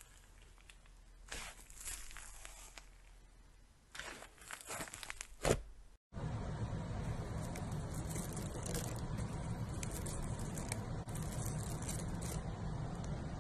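Hands stretching and pressing a thick butter slime, with sticky crackling and tearing sounds and one sharp pop about five and a half seconds in. After a cut, cereal rings are scattered and pressed into a glossy slime, giving repeated light crackles over a steady low hum.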